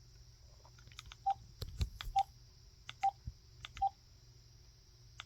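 Keypad buttons on a DECT 6.0 cordless phone handset being pressed to scroll through its menu. Each press gives a click and a short single-pitch key-tone beep, about four of them roughly a second apart.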